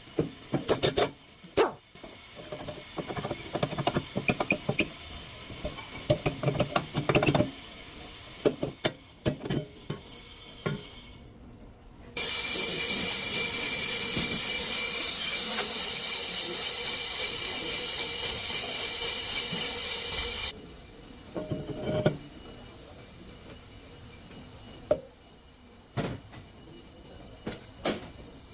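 Clicks and knocks of hand-tool work on a car's rear brake, then a steady, loud hiss of about eight seconds that starts and stops abruptly, followed by a few more knocks.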